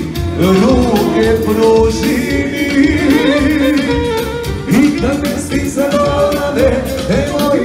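Loud upbeat dance music with a lead vocal singing over a steady bass beat.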